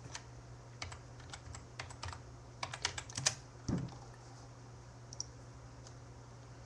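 Computer keyboard being typed on in scattered, irregular keystrokes, with a quick run of them around the middle, over a low steady hum.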